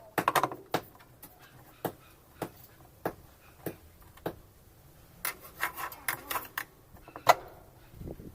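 Sharp clicks and light knocks of hand tools and parts being worked while a washing machine is taken apart. In the first half there is an even run of single clicks about every half second, later a quick cluster of clicks, and one loud click near the end.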